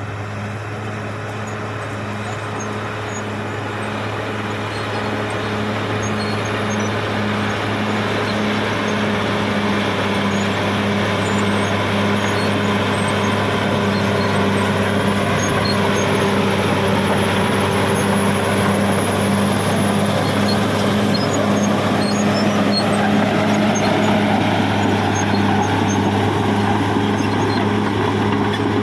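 Caterpillar D6R XL bulldozer's six-cylinder diesel engine running steadily while working, its note growing gradually louder over most of the stretch.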